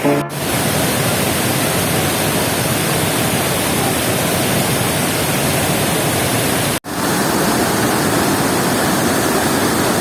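Steady, loud rush of a waterfall, an even hiss of falling water with no change in level. It cuts out for an instant twice, about a quarter second in and near seven seconds in.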